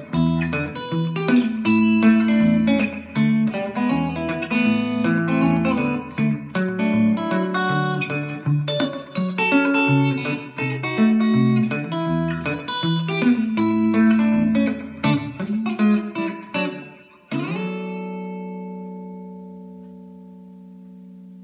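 Gretsch 6134T-58 White Penguin hollow-body electric guitar with TV Jones Filter'Tron pickups, played fingerstyle with a thumbpick: a picked melody over a moving bass line. About 17 seconds in it ends on a final chord that rings out and slowly fades.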